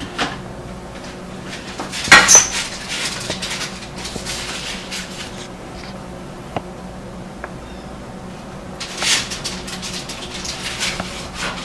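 A kitchen utensil scraping and clinking against ceramic plates and a foil tray as food is served, with the loudest clatter about two seconds in and another run of scraping near the end.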